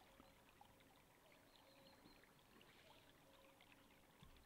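Near silence: faint outdoor ambience with low hiss.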